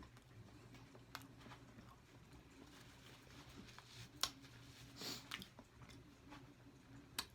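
Quiet close-miked eating: soft chewing and wet mouth smacks, with a few sharp clicks, the loudest about four seconds in. A faint steady hum lies underneath.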